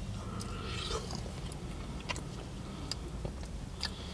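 Faint chewing and biting on a crispy fried chicken sandwich, with a few small, sharp clicks, over a steady low hum.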